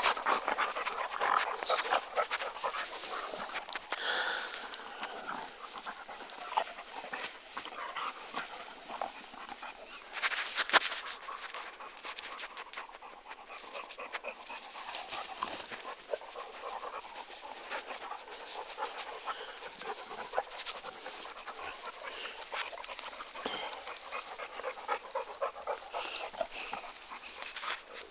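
Dog panting, with many small clicks and rustles throughout and a brief louder rush of noise about ten seconds in.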